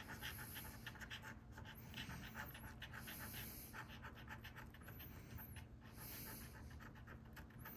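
A coin scraping the scratch-off coating of a lottery ticket in quick, repeated short strokes, faint.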